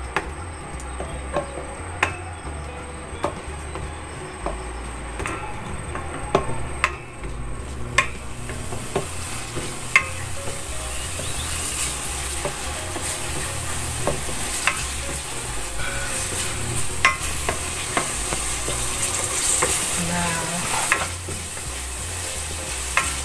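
Wooden spatula stirring and scraping black beans, garlic and long green chilies frying in oil in a stainless steel pan, with scattered sharp taps of the spatula on the pan. The sizzle of the oil grows louder from about eight seconds in.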